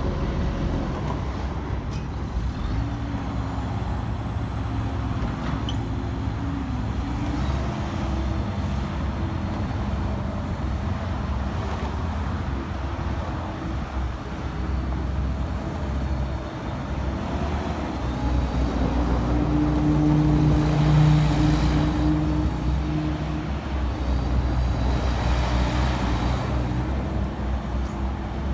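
Terex TSV60 (Cat 262D) skid steer's diesel engine running, its pitch shifting a few times as it is worked, and louder and higher for a few seconds about two-thirds in.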